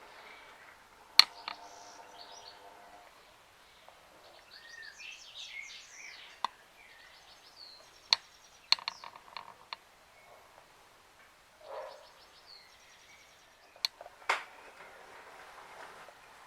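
Birds chirping and singing, with several sharp clicks and knocks, the loudest about a second in, and a short steady hum after it.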